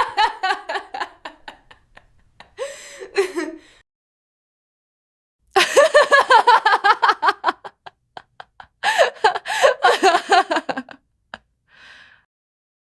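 A woman laughing in several separate bouts with silent gaps between them, each a quick run of pulsed "ha" sounds. The loudest bouts come about halfway through and again near the end, and a faint breath follows the last one.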